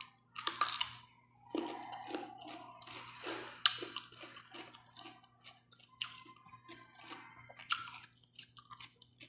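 A person biting into and chewing a raw green vegetable close to the microphone: repeated crisp crunches and wet chewing, the sharpest bite about midway.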